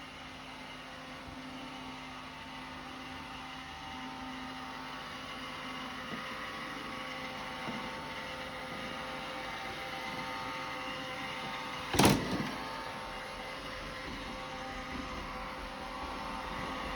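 Roomba robot vacuum running as it heads back to its dock: a steady whir of its motors and brushes with several faint steady tones, and one sharp knock about twelve seconds in.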